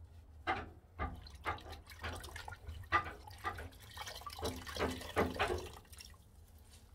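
Water dripping and splashing in irregular small drops and plops, as during wet cleaning with rubber gloves and a cloth, over a steady low hum.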